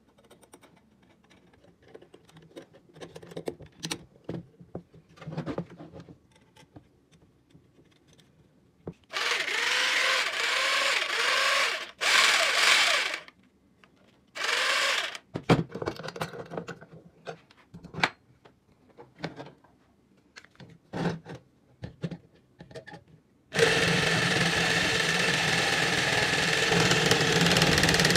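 Small clicks and metal knocks as a homemade hacksaw frame is fitted to an electric power tool. Then the tool's motor runs in a few short bursts. From about two-thirds of the way in it runs steadily, driving the hacksaw blade back and forth.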